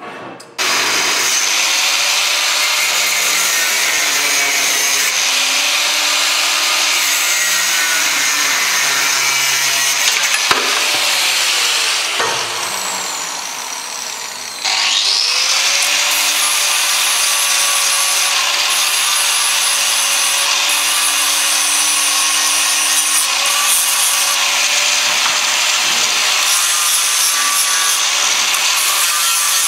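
Angle grinder with a thin cut-off disc cutting through a hard cast steel handle, a steady loud grinding whine. About halfway through, the sound eases off for a couple of seconds, then comes back with a rising whine as the disc bites again.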